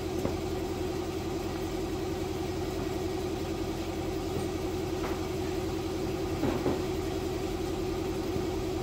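Air compressor running steadily, a constant mechanical drone with a rapid pulsing. A faint knock or two about six and a half seconds in.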